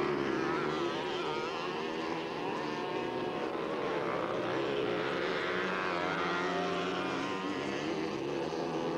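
Several small mini bike engines buzzing and revving together as the bikes race past, their pitches rising and falling as the riders open and close the throttle.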